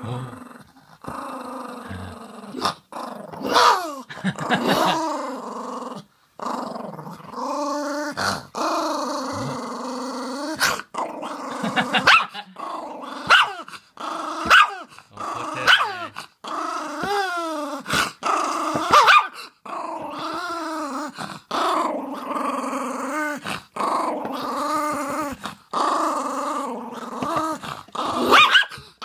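Small curly-haired dog growling in long growls that waver up and down in pitch, broken again and again by short sharp barks: it is guarding a piece of beef jerky.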